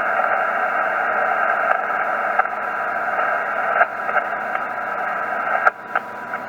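Yaesu FT-847 transceiver receiving the 40-meter band through its speaker in a gap between net transmissions. It gives a steady, band-limited hiss of band noise, broken by a few sharp static clicks, most clearly about four and six seconds in.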